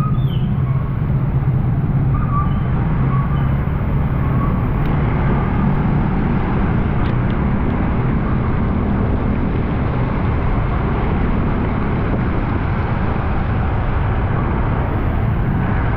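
Motorcycle under way: engine hum, clearest in the first few seconds, under a steady rush of wind and road noise.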